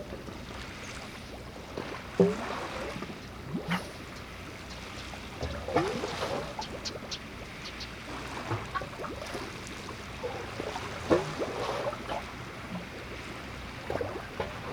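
Harbour water lapping and gurgling against the quayside in irregular splashes, the strongest about two, six and eleven seconds in, over a steady background hiss.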